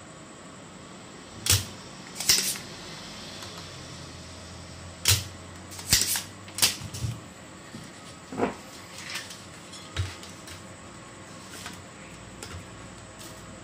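Irregular sharp plastic clicks and clacks, about a dozen: a spring-loaded desoldering pump snapping as it is fired and re-cocked on a circuit board's solder joints, along with the board and tools being handled.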